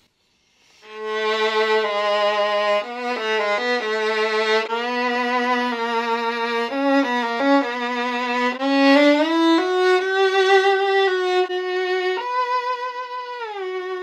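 Solo violin played on its low G string, a melody of sustained notes with some quick note changes, starting about a second in and climbing higher after about nine seconds.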